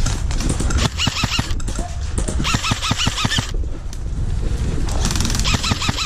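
Airsoft electric rifles firing long bursts of full-auto, a fast rattle of evenly spaced shots, starting about a second in and again near the end. A steady low rumble runs under it.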